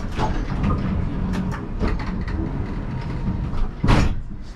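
Siemens Combino tram cab: a steady low rumble with several light knocks, and one loud clunk about four seconds in.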